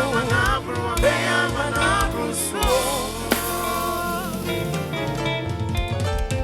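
Live gospel band music over a sound system: a singer's voice slides through long, wavering notes for the first few seconds over a drum kit and other instruments, then the instruments carry on alone.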